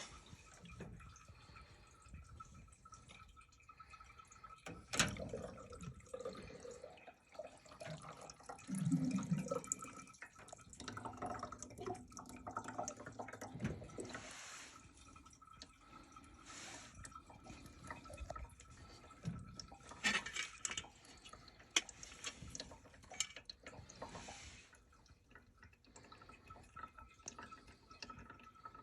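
Water dripping and splashing as it drains out of a gas furnace's condensate drain hoses, mixed with clicks and knocks from handling the hoses and fittings. Water collected in these hoses is what holds the furnace's pressure switch open.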